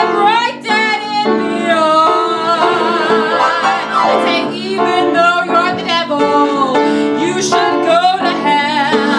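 A woman singing an improvised song with vibrato over instrumental accompaniment of held chords.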